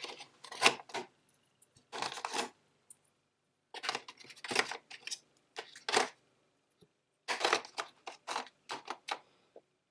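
Plastic miniature figures being set into the slots of a black plastic box insert: short clicks and scrapes of plastic on plastic, in four bunches with pauses between.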